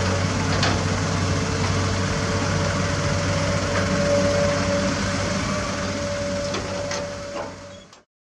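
Diesel engines of a Komatsu PC200 excavator and a Toyota Dyna dump truck running steadily as the excavator loads the truck, with a steady mid-pitched tone over the engine hum and a couple of sharp knocks. The sound fades out near the end.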